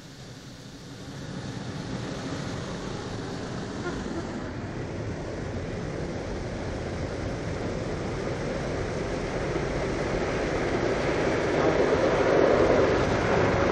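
Rotating brushes and water spray of an automatic car wash working over the car, heard from inside the car. The steady noise builds from about a second in and is loudest near the end, as a brush runs across the side window.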